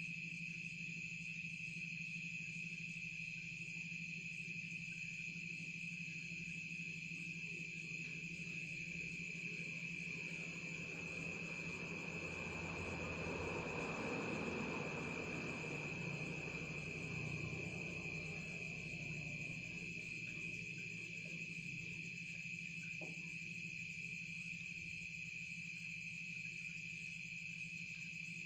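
Crickets and other night insects trilling in a steady, unbroken chorus. A broad swell of rushing noise rises and falls around the middle.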